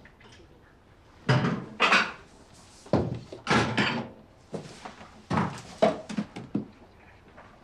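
A series of about six knocks and rustles, like objects being handled and set down, with quieter handling sounds in between.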